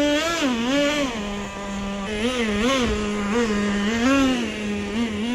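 Small nitro engine of a Traxxas T-Maxx RC truck running and being revved up and down repeatedly in short throttle bursts, falling back to a steady lower pitch between them.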